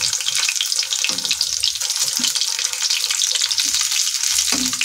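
Hot oil sizzling steadily as stuffed taro (arbi) rolls deep-fry in an iron kadhai.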